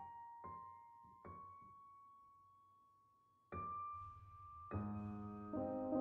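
Background piano music: a few single notes ring and die away, then fuller chords come in about halfway through.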